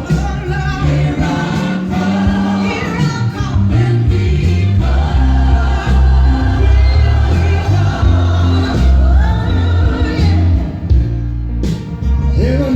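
Gospel music playing from a vinyl record on a Marantz TT-15S1 turntable: a choir singing over a strong, steady bass line.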